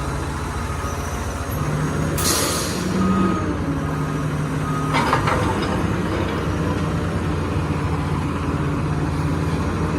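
Garbage truck engine running steadily close by, with a short hiss of air about two seconds in and a sharp click about halfway through.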